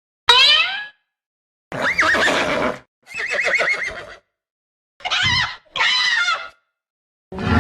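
Horse whinny sound effects: about six short neighs in a row, each cut off sharply into silence. The first one falls steeply in pitch.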